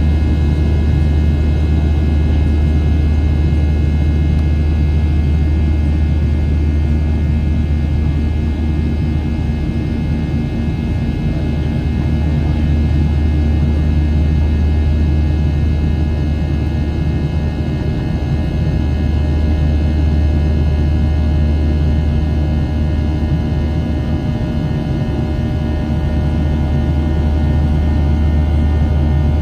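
Cabin noise of a Boeing 737-700 with its CFM56-7B turbofan engines running: a steady low rumble with several steady whining tones over it.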